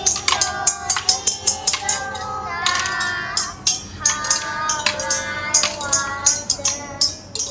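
A song with singing voices over jingling hand percussion struck in a steady beat, about three strokes a second.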